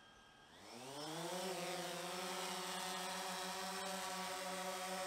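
DJI Phantom 3 Professional quadcopter's four electric motors and propellers, faint at idle, then rising in pitch about half a second in as they spin up for a manual takeoff. They settle into a steady hum as the drone lifts off and hovers.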